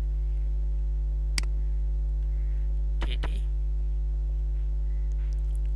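Steady electrical mains hum with a stack of steady overtones, carried on the recording throughout, and a single sharp click about one and a half seconds in.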